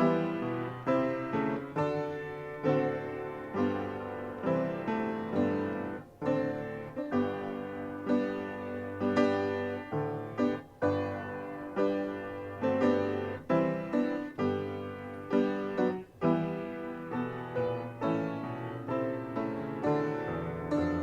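Instrumental keyboard music, piano-like: slow chords struck one after another, each ringing and fading before the next.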